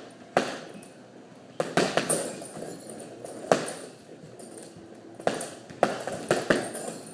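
Boxing gloves punching a hanging heavy bag: about nine sharp smacks in irregular clusters, each with a short echo.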